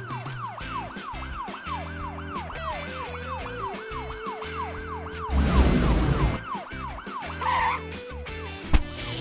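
Cartoon police siren sound effect wailing in quick falling sweeps, about three a second, over background music. The siren stops about five seconds in and a loud rumbling whoosh follows, then a short chirping effect and a sharp click near the end.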